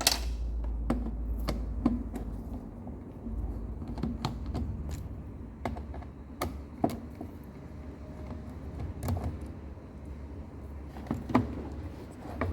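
Irregular sharp clicks and taps of a screwdriver and plastic panel parts being handled while screws are taken out of a washing machine's control panel, over a low steady hum.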